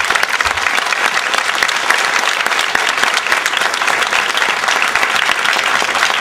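Audience applauding: a steady, dense clapping from many people.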